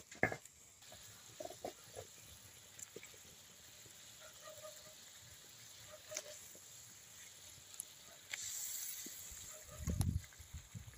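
Fish pieces frying in hot oil in a wok over a wood fire: a faint sizzle, with a louder hiss for about a second near the end as another piece goes in. A low rumble follows at the very end.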